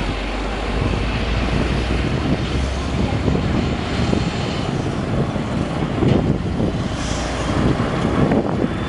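Airbus A330 airliner's twin jet engines on landing approach: a steady, noisy rumble and rush, with wind buffeting the microphone.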